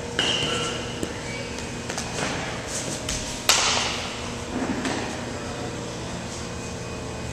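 Metal bat striking a baseball with a short ringing ping just after the start, then a loud sharp smack about three and a half seconds in. Both echo in a large metal-walled hall.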